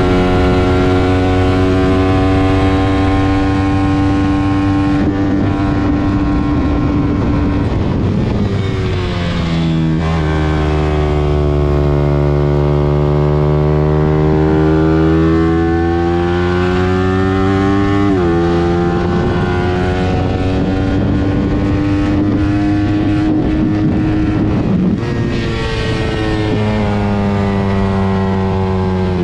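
Suzuki GSX-R150's single-cylinder engine running continuously, its speed sagging slowly and climbing back several times, with one sudden dip about two-thirds of the way through.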